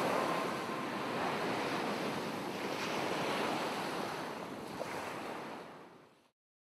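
Sea waves washing on a beach, a steady surf with a few swells, fading out to silence near the end.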